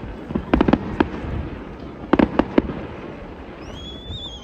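Fireworks display: two quick clusters of sharp bangs from aerial shells bursting, about a second and a half apart. A high whistle rises and wavers near the end.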